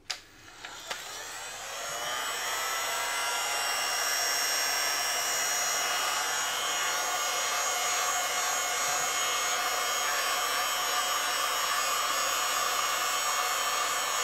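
Small heat gun switched on with a click, spinning up with a rising whine over the first two seconds, then running steadily on its low setting to pop air bubbles in freshly poured epoxy resin.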